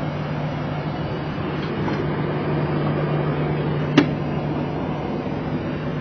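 Boeing 737 flight-deck noise with the engines idling through their cooldown before shutdown: a steady hum under an even rush. A single sharp click about four seconds in.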